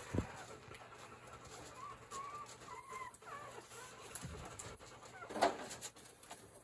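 Four-day-old puppies giving thin, high-pitched squeaks and whines a couple of seconds in, with a short, louder sound near the end and a couple of soft knocks at the start.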